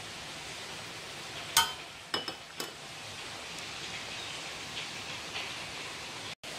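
Metal spatula clinking against the side of a metal wok: one sharp ringing clink about a second and a half in, then three lighter clinks in quick succession, over a steady low hiss.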